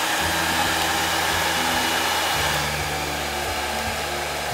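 Handheld hair dryer running: a loud, steady rush of blown air, dropping slightly in level a little after halfway.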